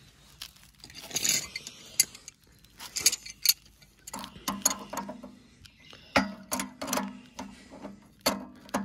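A series of sharp metal clicks and clinks as pliers grip and turn a lock nut on a drive-shaft coupling.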